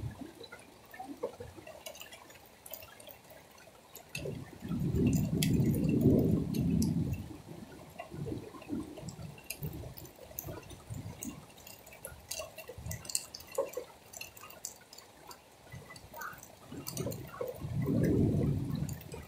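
Rain falling, with drops dripping and ticking close by. Two louder low rushes swell up, about four seconds in and again near the end.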